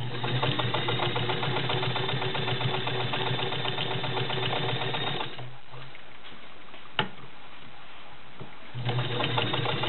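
Sears Kenmore model 148.273 Class 15 clone straight-stitch sewing machine, driven by its belted electric motor, running and stitching through five layers of denim with a fast, even needle rhythm. It stops a little past halfway, a single sharp click sounds in the pause, and it starts stitching again near the end.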